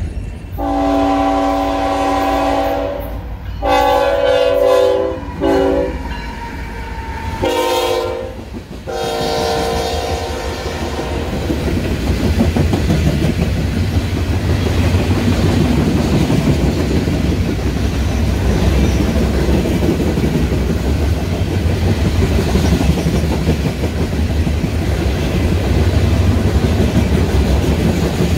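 A Canadian National freight train's locomotive air horn sounds a series of multi-tone blasts over about the first ten seconds: two long ones, a short one, then two more. The horn then gives way to the steady rumble of freight cars rolling past close by, their wheels clicking over the rails.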